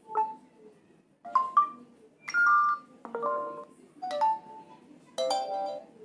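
A Realme C25Y's loudspeaker playing a run of notification-tone previews one after another: about six short melodic chimes of a few notes each, every one cut off by the next as a new tone is selected.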